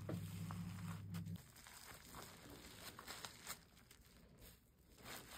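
Faint crinkling and rustling of bubble wrap and a cloth towel as a roll of wet wool felt is handled and wrapped by hand. A low steady hum stops about a second and a half in.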